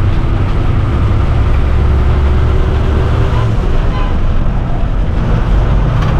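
Ashok Leyland diesel bus engine running under way, a loud steady low drone heard from inside the cabin over a rushing road noise; the deepest part of the hum eases a little about three and a half seconds in.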